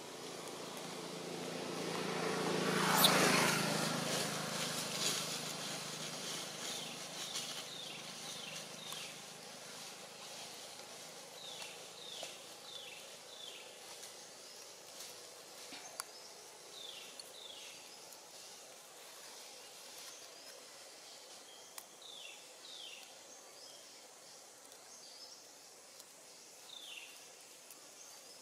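Outdoor ambience: an engine passes by, loudest about three seconds in and fading away over the next few seconds. After that, short high chirps that fall in pitch repeat in small groups over a faint insect hum.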